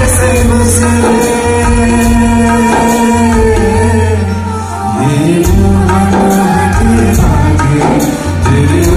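Live Indian song performed by a female and a male singer with drum and harmonium/keyboard accompaniment: long held sung notes over a steady low drum beat, then a lower vocal phrase entering a little past halfway.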